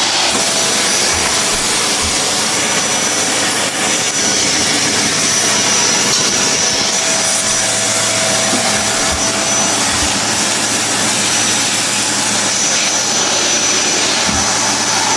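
Vacuum cleaner running steadily, its motor giving a continuous rushing noise with a thin high whine on top.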